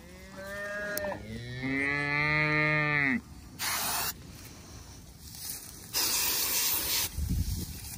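Cattle mooing twice: a short, level moo, then a longer moo that swells and falls away at its end. Two short bursts of hiss follow a little later.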